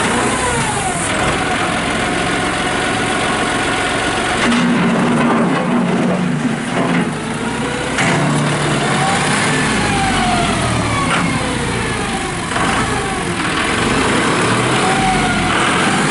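John Deere 5045D tractor's three-cylinder turbo diesel running under operation, its pitch rising and falling several times as the engine speed changes.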